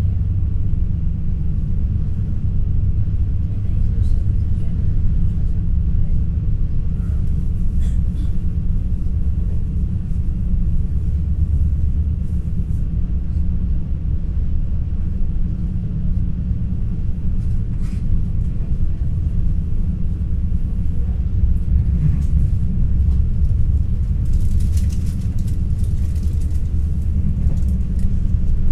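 Steady low rumble of an NS ICNG intercity train running, heard from inside the passenger car, with a few faint clicks and a brief rise in hiss near the end.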